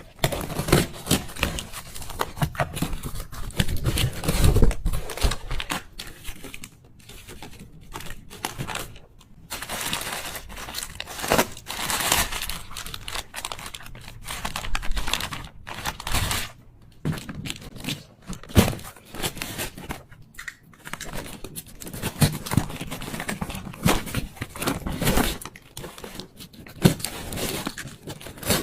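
Packaging being crinkled and torn open by hand, an irregular run of crackling rustles with short sharp clicks and brief pauses.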